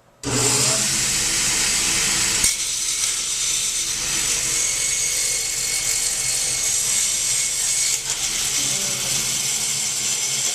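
Table saw switched on and cutting wood. It comes up to speed at once and runs steadily and loudly for about ten seconds, motor hum under a bright blade whine.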